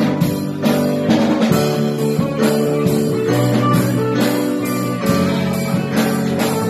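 Live rock band playing: electric guitar over keyboard and a drum kit keeping a steady beat.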